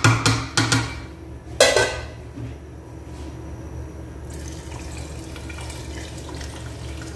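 A metal spoon knocks and scrapes against an aluminium pot several times in the first couple of seconds. Then, from about four seconds in, water pours from an electric kettle in a steady stream into the pot of macaroni soup.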